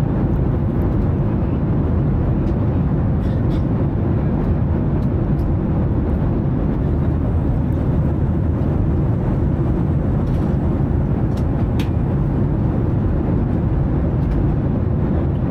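Steady low roar of an airliner cabin in flight, from engine and airflow noise, with a few faint clicks.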